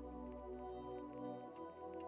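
Soft background music: held synth tones over a low bass note that changes about one and a half seconds in.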